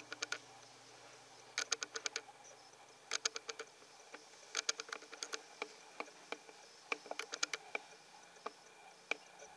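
Quick runs of light clicks, five to eight at a time, repeating every second or so, with a faint low hum under the first half.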